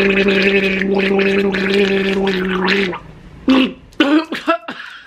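A man gargling water with a steady hum for about three seconds. Then he breaks off and splutters, spraying the water out of his mouth and nose in a few short bursts.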